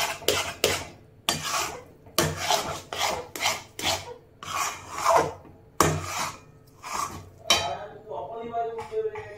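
Metal spatula scraping and stirring thick semolina-and-milk mixture around a metal kadai, a rasping scrape about every half second. The strokes ease off and turn softer near the end. The semolina has soaked up the milk and is pulling together into a dough.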